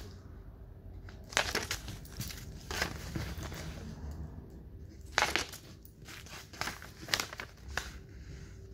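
A pencil ticking entries off on a paper sheet while the paper is handled: short scratches and rustles at irregular intervals.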